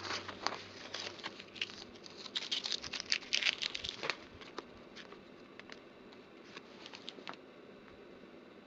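Paper envelopes rustling and crinkling as they are handled, in a quick run of taps and crackles that thins out after about four seconds and stops a little past seven.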